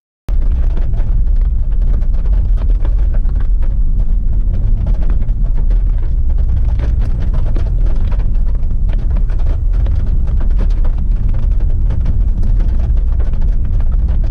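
Heavy wind buffeting the microphone: a loud, steady low rumble with crackling, cutting in suddenly.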